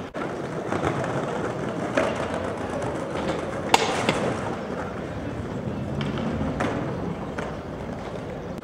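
Stunt scooter wheels rolling over stone paving slabs, with a sharp clack nearly four seconds in and a smaller knock at about two seconds.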